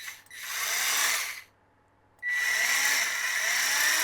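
Cordless electric carving knife switched on with a click, its motor and reciprocating blades running unloaded in two bursts: about a second, then a brief stop, then a longer run. It runs normally now that its loose power button has been fixed.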